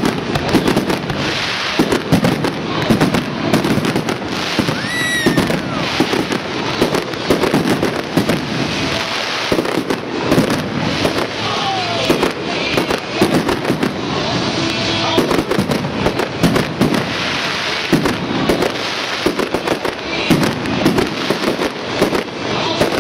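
Fireworks display: a dense, continuous run of bangs and crackling from bursting shells, with a brief whistle about five seconds in.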